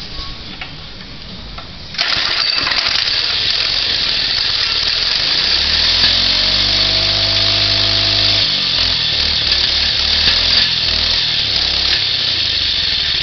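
Baja Blitz 97cc mini bike engine running with its governor screw loosened, so it can rev higher. Its noise comes in suddenly about two seconds in; around the middle it is revved up for about three seconds, then drops back.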